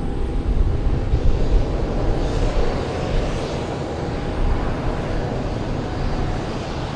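Jet airliner engines running, a steady broad rumble with a hiss above it that swells a little in the first two seconds.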